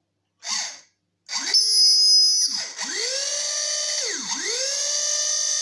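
Hair dryer's fan motor spinning up with a high whine and a hiss of blown air, dropping out and spinning back up twice before running steadily. It runs again after hair was cleared from the motor and fan. A short noisy burst comes about half a second in, before the motor starts.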